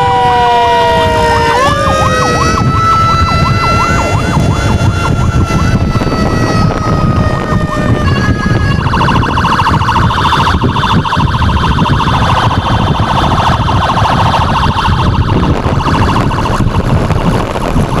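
Electronic emergency sirens of a motorcycle ambulance escort switching between patterns. Steady tones step up in pitch, then fast rising-and-falling yelps run until a rapid warble takes over about nine seconds in, all over motorcycle engine and road noise.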